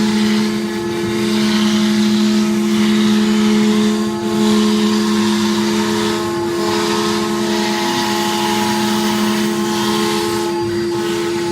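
CNC router spindle running with a steady pitched whine while the bit cuts 16 mm MDF, over a wide hiss of cutting that eases briefly a few times.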